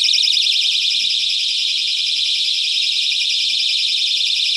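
Smoke alarm sounding, deliberately set off: one loud, shrill, continuous high-pitched tone with a rapid flutter.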